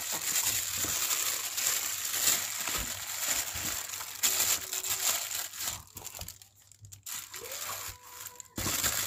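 Clear plastic wrapping crinkling as hands handle the wrapped parts of a condenser microphone kit in its box. The crinkling is dense for about five seconds, then dies down.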